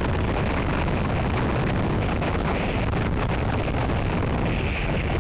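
Gusty pre-hurricane wind buffeting the nest camera's microphone: a steady low rumble with a hiss over it.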